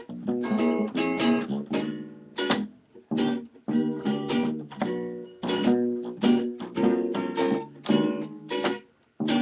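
Acoustic guitar strumming a rhythmic chord accompaniment in short, clipped strokes with brief breaks between phrases.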